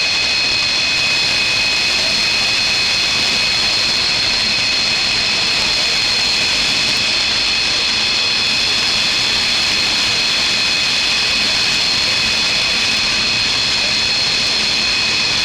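Mirage 2000 jet fighter's single SNECMA M53 turbofan running steadily: a loud, even roar with a high, unchanging whine over it.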